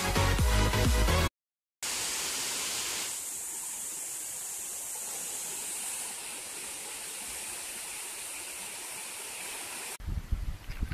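Waterfall rushing: a steady, even hiss of heavy falling water. It is preceded by background music that cuts off about a second in, and in the last second a rougher low rumble with irregular knocks takes over.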